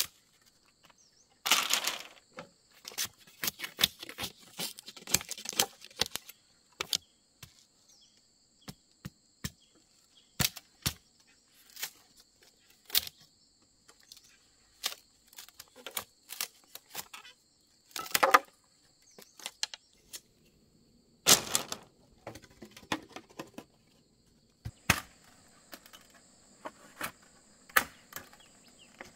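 Irregular taps, clicks and knocks of bamboo being handled and worked for wall-building, with a few louder, longer strokes among them. Insects buzz steadily in two high tones behind it.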